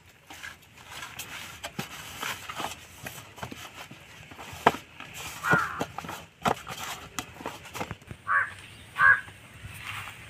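Hands kneading soft dough in a steel plate, with irregular soft slaps and taps. A bird calls three times, the two calls near the end the loudest sounds.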